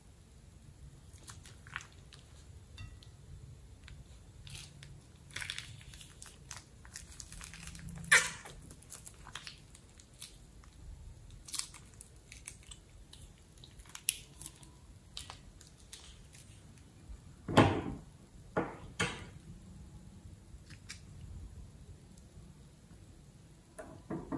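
Scattered sticky clicks and crackles of wet slime and glue being worked by hand in a glass bowl, as glue is squeezed from plastic piping bags and a fingertip drags through the swirls. A few clicks stand out louder, one about a third of the way in and a cluster about three-quarters through.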